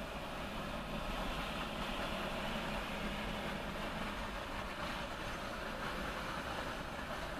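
Norfolk Southern freight train rolling past, a steady rumble and rush of wheels on rail with no break in it.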